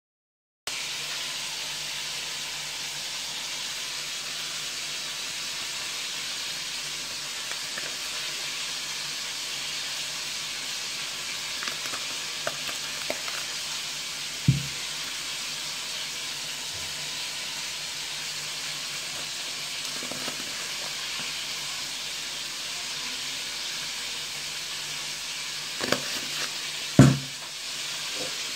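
A steady hiss with a faint low hum underneath, broken by a few sharp knocks, the loudest near the end.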